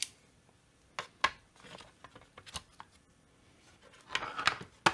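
A digital caliper and its plastic case being handled on a workbench: a few scattered sharp clicks and small knocks, then a short scrape near the end and one more sharp click.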